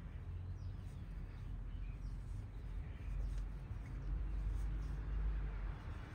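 Quiet outdoor background: a steady low rumble with a few faint bird chirps.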